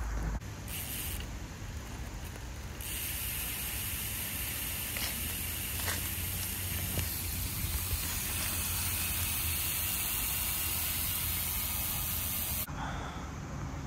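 BMX rear cassette hub freewheeling as the wheel spins, its pawls giving a fast, steady ratcheting buzz from about three seconds in until it stops shortly before the end. A brief burst of the same sound comes about a second in.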